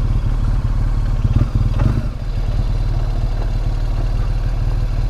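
BMW R1200GS's boxer-twin engine running steadily, a low rumble, with a little clatter about one and a half seconds in.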